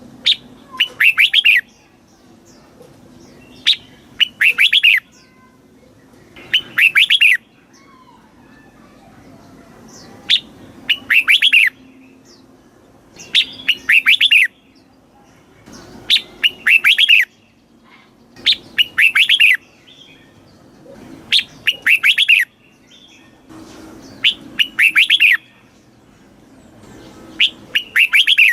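Red-whiskered bulbul singing: short, loud phrases of quick descending whistled notes, each about a second long, repeated every two and a half to three seconds, about ten phrases in all.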